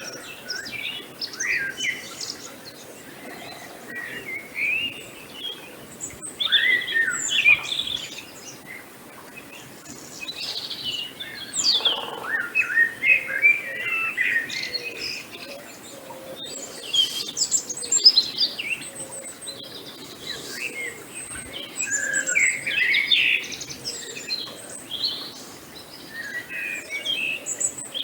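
Several songbirds chirping and singing together, a steady stream of short overlapping calls and warbles over a faint outdoor background hiss.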